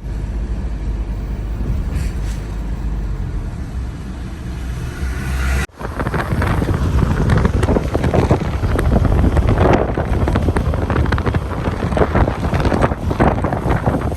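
Strong wind buffeting the microphone in a rainstorm, a loud low rumble that gusts unevenly. It breaks off abruptly almost six seconds in, then comes back rougher and gustier.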